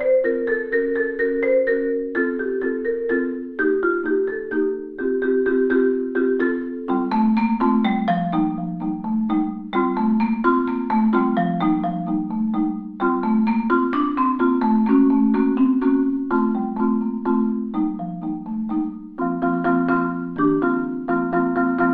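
Solo Saito concert marimba played with four mallets: rapid, even strokes on the wooden bars hold shifting chords in the middle register, with lower bass notes joining about a third of the way through.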